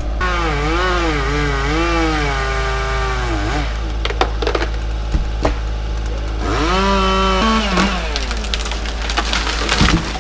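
Chainsaw cutting wood, its engine pitch wavering and dipping under load in two spells, with sharp cracking and splintering of wood between and after the cuts.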